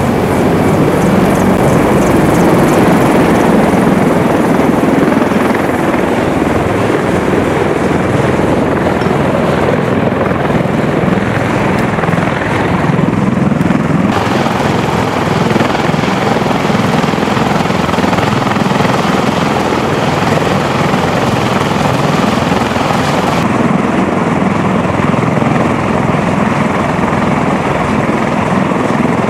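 Military transport helicopter's rotors and engines running, a loud steady din, changing abruptly about halfway through and again near the end.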